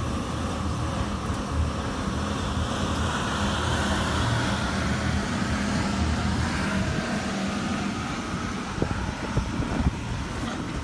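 Electric air blower of a bouncy-castle inflatable running with a steady hum and rush of air, with a few soft thumps near the end.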